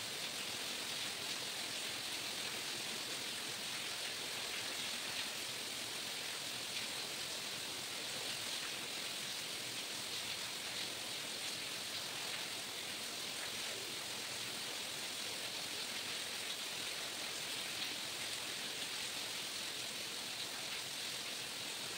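Steady, even hiss with no distinct separate sounds.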